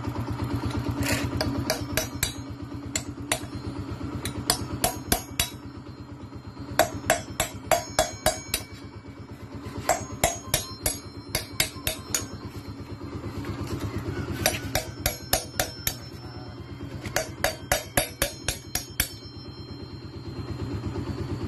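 Hammer blows on metal at a motorcycle wheel, coming in several quick runs of about four to ten sharp strikes each, over a steady low hum.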